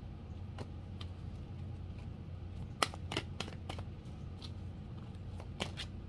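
A deck of oracle cards being handled and shuffled by hand: scattered soft card flicks and snaps, with a sharper cluster about halfway through and a few more near the end, over a steady low hum.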